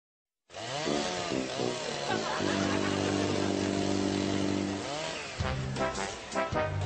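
Chainsaw revving up and down, then holding a steady pitch for about two seconds before it drops away.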